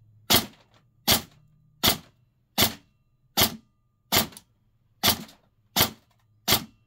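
Cyma Platinum SR25 airsoft electric rifle (AEG) firing semi-auto shots through a chronograph: nine sharp, evenly spaced cracks, about one every three-quarters of a second. Its gearbox is fitted with a roughly 17-pound spring and a spacer, tuned to about 2.1 joules with 0.4 g BBs.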